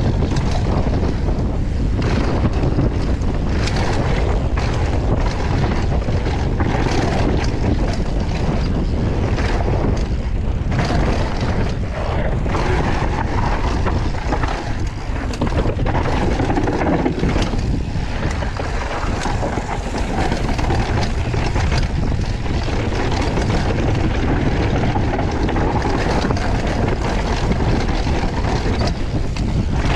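Downhill mountain bike descending a rocky dirt trail at speed: heavy wind buffeting on the microphone over the rumble of tyres on dirt and rock, with frequent knocks and rattles as the bike hits bumps.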